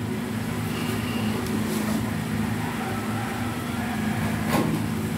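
Refrigerator compressor running with a steady electrical hum, and a single light knock about four and a half seconds in.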